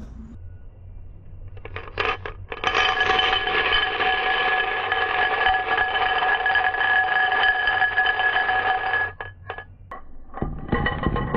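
Glass marbles swirled round inside a drinking glass: a continuous rolling rattle with the glass ringing at several steady pitches, broken off briefly near the end and then resuming as the marbles are tipped out onto the track.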